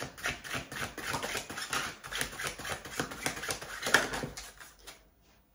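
A tarot deck being shuffled by hand: a rapid run of papery card flicks and rustles that stops about five seconds in.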